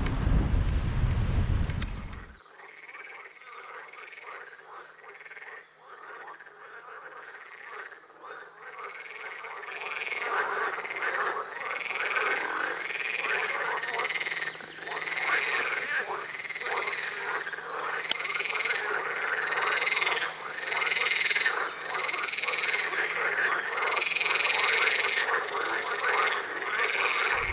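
Wind rumbling on the microphone for about two seconds, then a chorus of frogs croaking: many overlapping, rapidly pulsed calls repeating about once a second, growing louder and denser about ten seconds in.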